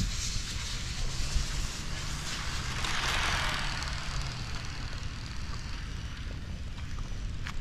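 Radio-controlled on-road Formula 1 car running on an asphalt track, its hissing motor and tyre noise swelling as it comes close about three seconds in, then fading away.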